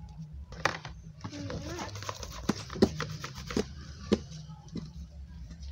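A ball of soft eba being swirled and knocked around inside a plastic bowl to round it into shape: a string of dull knocks against the plastic with rubbing in between.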